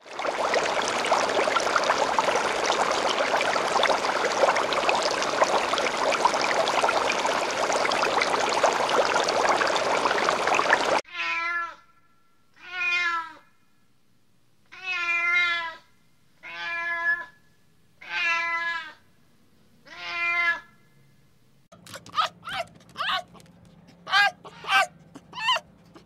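A steady rushing noise for about eleven seconds, then an animal's wavering calls, six of them about a second long, with a short pause between each, then a quick run of short, sharp calls near the end.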